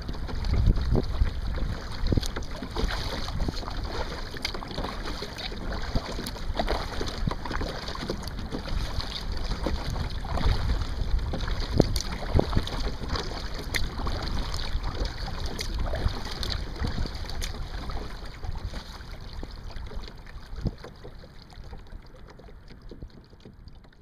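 Water slapping and lapping against a moving kayak's hull in small irregular splashes, with wind buffeting the microphone; it fades out near the end.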